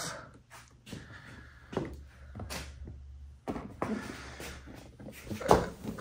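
Sea-Doo's plastic front cover panel being pulled free of its clips and handled: a series of light plastic clicks and knocks, the loudest near the end.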